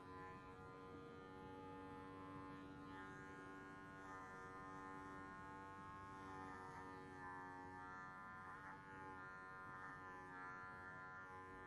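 Cordless hair clippers running with a steady buzz as they cut short grey hair.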